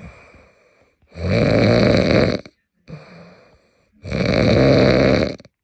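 A man snoring in his sleep: two long, loud snores about three seconds apart, each lasting over a second, with quieter, fading breaths between them.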